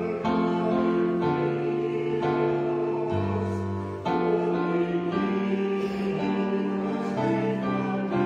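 Kawai MP7 digital stage piano playing slow, sustained chords that change about once a second.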